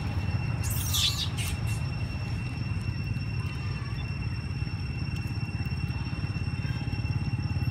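Steady low rumble with a thin, continuous high-pitched tone over it. A brief high squeak or chirp comes about a second in.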